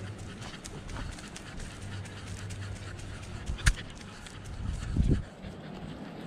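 A dog walking, heard through a camera on its collar: a run of light footfalls and clicks, a sharp knock a little after three and a half seconds in, and a louder low thump about five seconds in.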